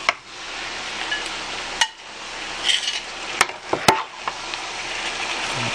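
Beef, mushrooms and onions sizzling in butter in a hot sauté pan as they are stirred, with a steady frying hiss. A utensil clicks sharply against the pan at the start, about two seconds in, and twice more shortly after three and a half seconds.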